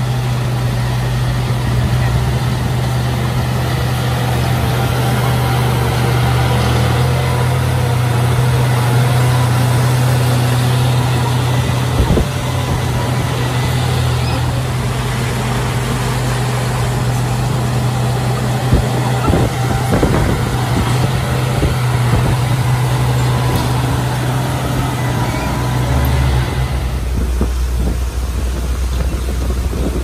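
Heavy earthmoving machine's diesel engine running steadily under work. There are a few sharp clanks partway through, and near the end the engine note drops lower as the revs come down.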